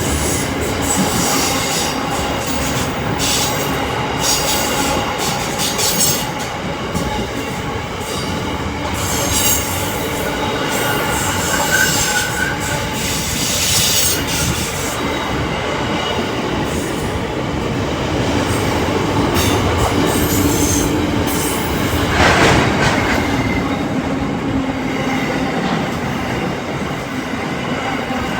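A train rolling through a station, with steady rolling noise, wheels squealing on the rails and some clickety-clack over the rail joints.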